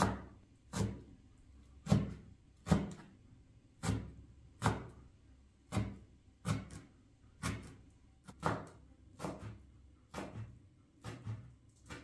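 Steady series of hard knocks on wood, about one every three-quarters of a second, some blows louder than others.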